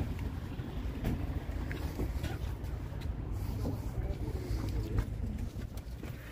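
Low, steady rumble of wind buffeting the microphone outdoors, with a few light clicks and knocks as the door of a 1986 Dodge Ramcharger is unlatched and opened.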